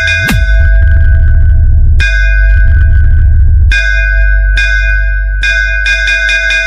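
Bass-boosted DJ sound-check track: bell-like synth chimes struck in runs every second or two over heavy, continuous sub-bass, with a falling bass sweep just after the start.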